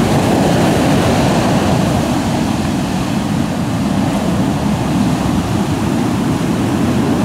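Heavy storm surf breaking continuously, a loud, steady rush of water, with wind buffeting the microphone.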